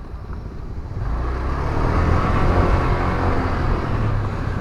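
Honda Click 125i scooter's engine running while it is ridden, mixed with wind and road rumble that grow louder about a second in as it picks up speed.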